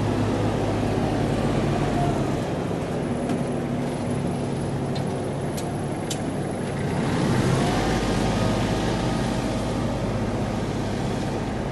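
Small compact tractor's engine running steadily, swelling a little about seven seconds in, with a few sharp clicks a few seconds in.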